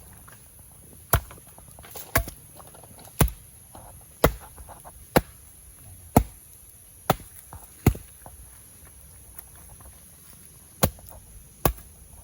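Wood being chopped with a bladed tool: about ten sharp strikes, roughly one a second, with a pause of a few seconds near the end before two more.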